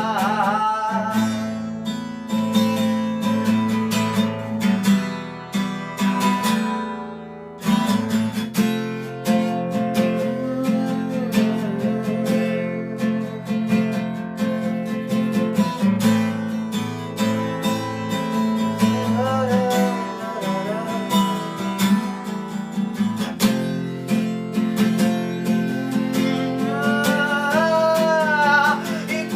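Acoustic guitar strumming chords in a steady rhythm, with a melodic line over it, in an instrumental passage of a song; the strumming drops away briefly about seven seconds in, then resumes.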